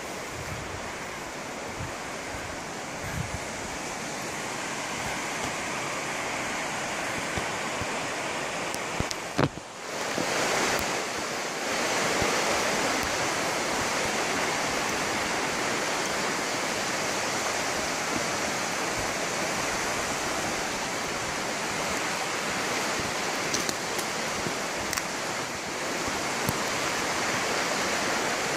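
Steady rush of fast-flowing water, with a sharp knock about nine seconds in, after which the rush is a little louder.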